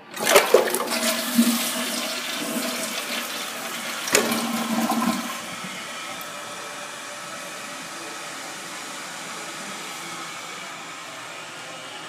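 Mansfield Alto tank-type toilet flushing: water rushes out of the tank through the tower-style flush valve. There is a sharp clunk about four seconds in, and the rush stops a second later. It is followed by the steady hiss of the fill valve refilling the tank.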